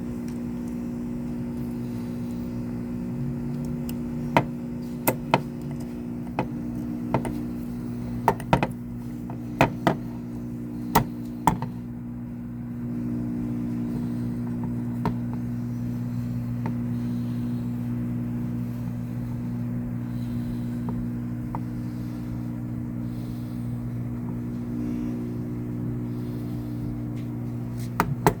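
A steady electrical machine hum. Over it, a run of sharp clicks and taps comes from about four to twelve seconds in, and a few more come near the end.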